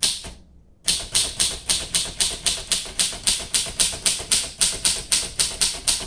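1942 Royal Companion manual typewriter being typed on steadily, starting about a second in: an even run of sharp typebar strikes, about four a second. The keys and typebars strike freely, not stiff or sticking.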